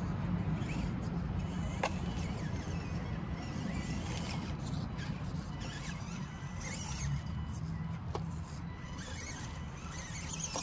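A 1/24-scale Element Enduro24 RC crawler's small electric motor and geartrain running steadily as it crawls up onto a rock, with a couple of sharp clicks from the truck against the stone.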